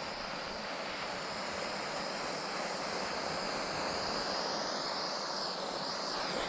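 Handheld gas torch burning with a steady hiss, its flame swept over freshly poured epoxy to pop the surface bubbles.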